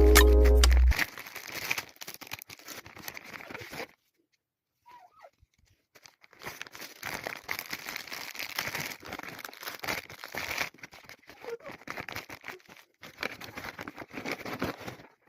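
Packaging crinkling and rustling as a parcel is unboxed by hand, in irregular handling noises with a pause of about two seconds in the middle. A short stretch of music ends about a second in.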